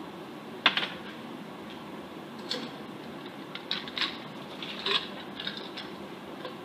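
Bar glassware and ice clinking while a cocktail is mixed: one sharp clink about a second in, then several lighter clinks between about two and five seconds in.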